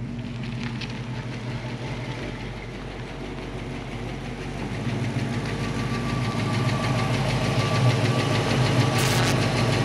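1966 Mustang's factory V8 engine running at low speed as the car drives closer, growing steadily louder over the second half. Two brief sharp clicks near the end.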